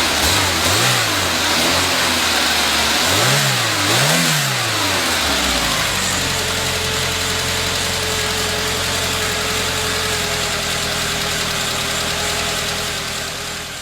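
Car engine revved up and down a couple of times, then running at a steady speed with a thin steady whine over it.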